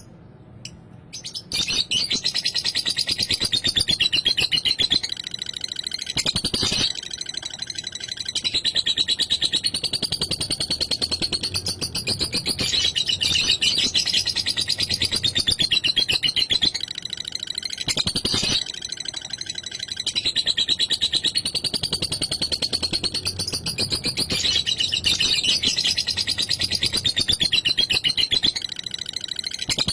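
Lovebird singing a long, rapid, unbroken chattering trill (the 'ngekek' song), starting about a second and a half in.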